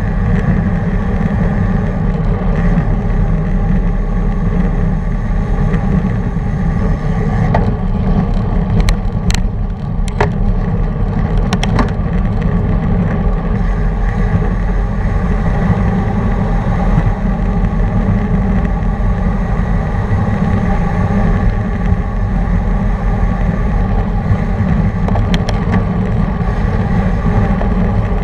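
Steady wind rushing over the camera's microphone at racing speed, with road bike tyres rolling on asphalt. A few sharp clicks in the middle and again near the end.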